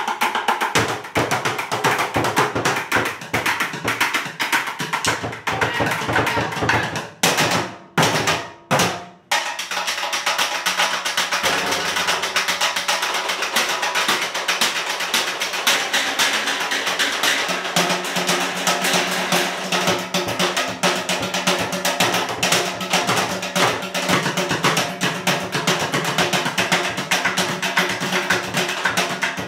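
Bucket drumming: two or more players strike upturned plastic buckets and metal cans and lids with drumsticks in a fast, dense groove. About seven seconds in the playing breaks into a few separate accented hits with short gaps, then the full groove comes back.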